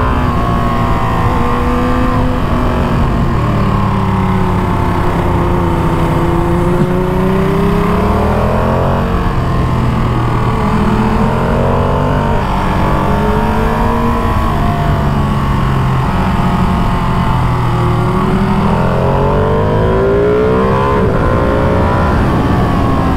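Ducati Panigale V2's V-twin engine heard from the saddle under hard riding, its pitch repeatedly rising as it accelerates and dropping as the rider shifts or backs off, with wind rushing over the helmet.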